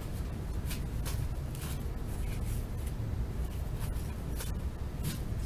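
Faint rustling and light clicks of cardboard baseball cards being handled and flipped through from a freshly opened wax pack, over a low steady hum.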